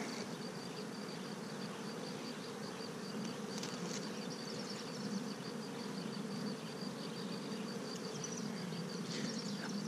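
Honey bees from an open hive of Italian bees humming steadily, with a faint fast ticking high above the hum.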